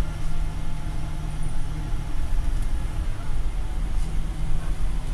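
Steady low rumble of a Volvo single-deck bus's engine heard inside the passenger cabin, with a few faint clicks from the fittings.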